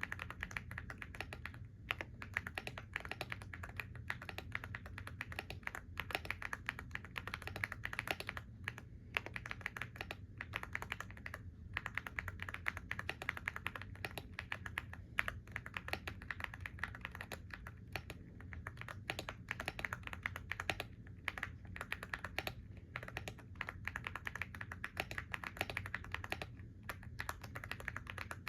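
Continuous fast typing on a computer keyboard: a dense run of key clicks with a few brief pauses.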